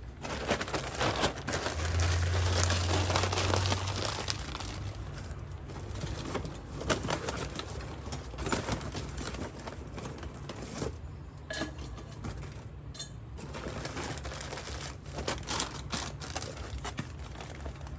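Potting soil being scooped, crumbled and pressed in around a plant's roots by hand, with irregular rustling, crackling and small clicks. A low rumble comes in about two seconds in and lasts a couple of seconds.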